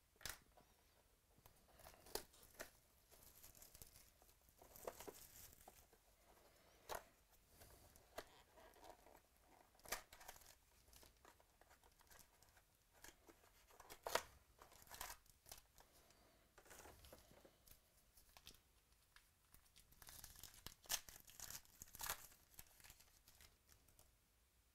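Faint scattered rips, rustles and crinkles of a trading-card box and its foil-wrapped packs being torn open by hand.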